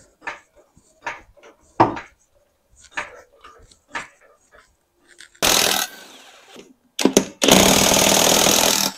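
Cordless impact wrench hammering on the wheel's lug nuts to loosen them: a half-second burst about five and a half seconds in, then a longer run of about a second and a half near the end, after a few scattered clicks and knocks.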